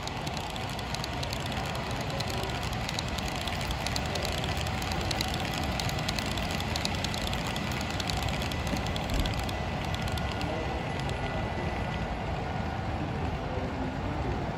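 HO scale model passenger train running past, its wheels making rapid fine clicks on the track joints over a steady running noise. The clicks thin out about ten seconds in as the train clears.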